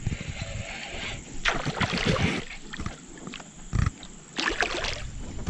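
Irregular splashing and sloshing of water from a hooked pacu thrashing at the surface, in uneven surges with a couple of dull thumps.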